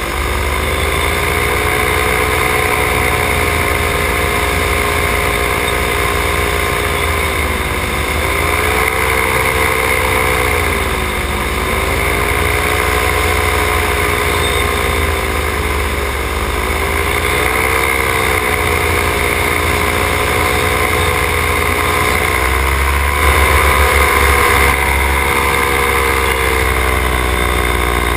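Paramotor engine and propeller running steadily, with the engine pitch dipping and rising every few seconds. A low rumble underneath gets louder near the end.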